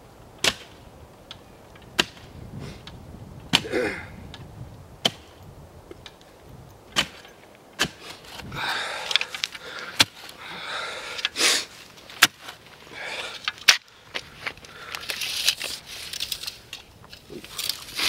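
Clamshell post-hole digger jabbed into dry, sandy soil: sharp strikes every second or two as the blades hit the ground, and from about halfway on, rough scraping of soil as the blades cut and lift it out of the hole.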